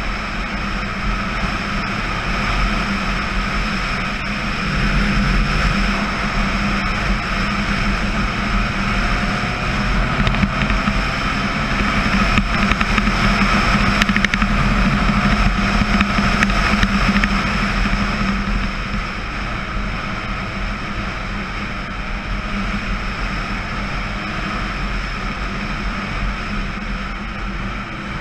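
Kawasaki KE100 dirt bike's two-stroke single-cylinder engine running under way. It gets louder for a stretch in the middle, then eases off in the second half.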